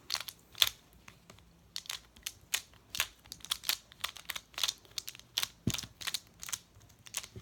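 Moyu magnetic Skewb puzzle being turned by hand: a string of sharp, irregular plastic clicks and clacks, about two to three a second.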